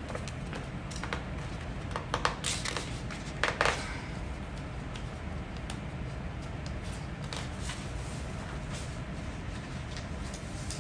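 A person hiccuping: two short, sharp hiccups, one about two seconds in and one about three and a half seconds in, over a steady low hum.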